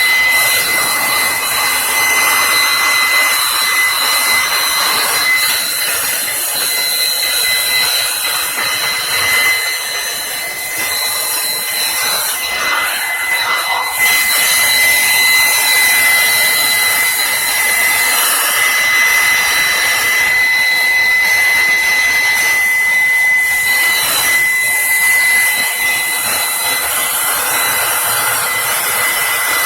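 A small electric blower running steadily, a rush of air with a high motor whine, blowing dust out of a mixing console during cleaning. It eases off slightly about ten seconds in and comes back up abruptly a few seconds later.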